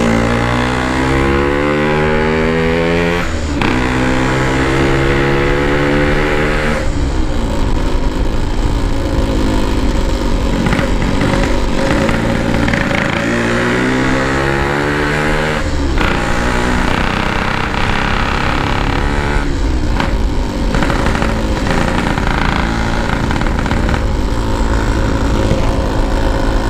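Yamaha RX-King's single-cylinder two-stroke engine pulling hard while riding, its pitch climbing through each gear and dropping at the gear changes several times.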